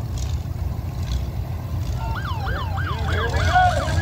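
Low, steady rumble of vehicle engines. About halfway in, a siren starts yelping: a fast rise and fall in pitch, repeated several times a second.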